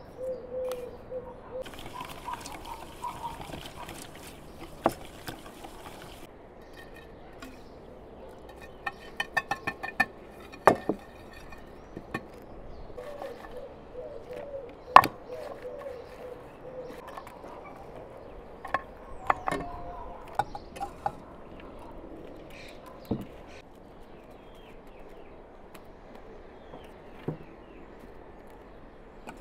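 A dove cooing at the start and again about halfway through, over scattered light clicks and taps. There is a quick run of ticks about a third of the way in and one sharp knock about halfway.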